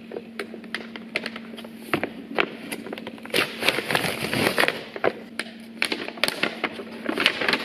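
A mailing envelope being handled and torn open by hand: crinkling, crackling rustles with many sharp clicks, busiest about halfway through and again near the end.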